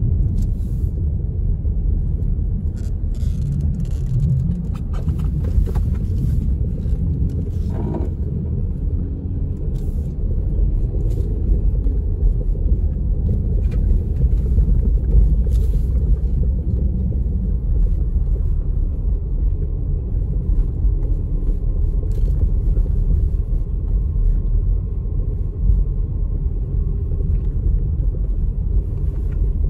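Car driving, a steady low rumble of road and engine noise heard from inside the cabin.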